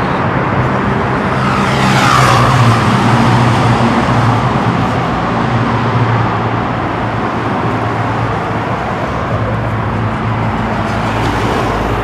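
Road traffic: a steady drone of car engines and tyre noise, with one vehicle passing close about two seconds in, its pitch falling as it goes by.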